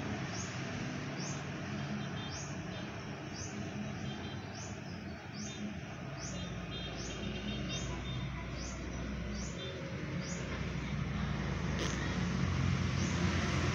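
A bird chirping: a short, high call repeated about once a second, over a steady low hum.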